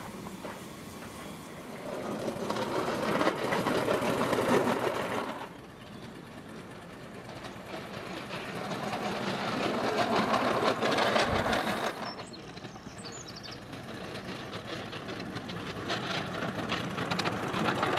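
Coal-fired 7¼-inch gauge miniature steam locomotive, a model of an Orenstein & Koppel industrial engine, running along the track with its exhaust chuffing in a fast rhythm. The sound swells and fades as it draws near and passes, and changes abruptly about five seconds in and again near twelve.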